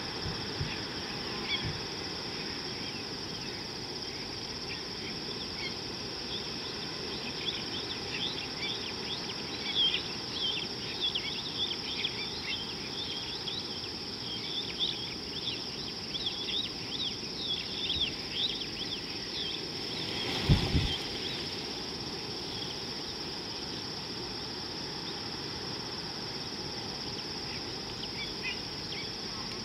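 Steady high-pitched insect drone, with a flurry of bird chirps and calls through the middle, and one brief low thump about twenty seconds in.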